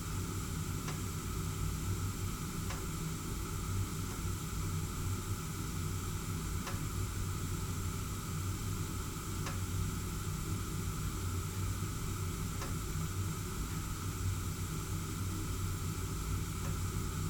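Gas heating burner flame burning steadily, a constant noisy rush over a low hum. A few faint, irregularly spaced ticks come through, the sound of metal expanding as it heats.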